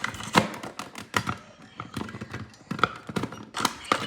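Irregular plastic clicks and knocks as a smoke detector's cover is pushed up against its base and twisted into place.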